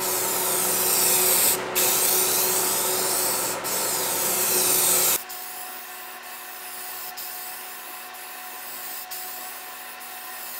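Aerosol spray can hissing as a coat is sprayed onto a plastic license plate trim, in sweeping passes with brief breaks. It is loud for the first five seconds or so, then drops suddenly to a quieter hiss that pauses about once a second.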